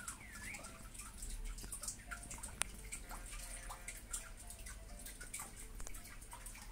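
Faint room tone with scattered small clicks and ticks, and one sharper click about two and a half seconds in.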